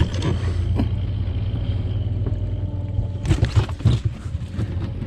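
A boat's motor running steadily with a low hum. About three seconds in, short knocks and clattering start as the landed salmon and the landing net are handled on the deck.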